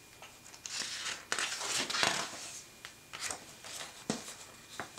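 Paper rustling as a picture book's page is turned and pressed flat by hand, lasting about two seconds, followed by a few light taps and brushes.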